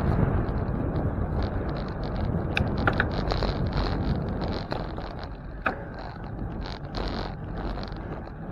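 Wind rushing over the microphone of a moving bicycle, with a few sharp clicks or rattles about three seconds in and again near six seconds.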